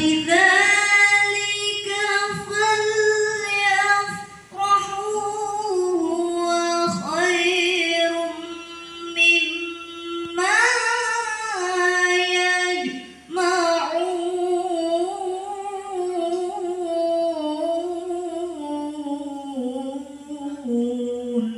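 Melodic Quran recitation by a qori': a single voice chanting long, ornamented held notes in phrases, with short breaths between them and the melody sinking lower near the end.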